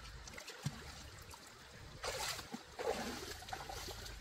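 River water flowing over rocks, a steady rushing, with a few small clicks and two louder noisy bursts about two and three seconds in.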